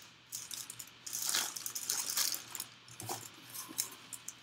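Plastic bag crinkling and a cardboard box rustling as they are handled, in irregular crackles with a few sharp clicks.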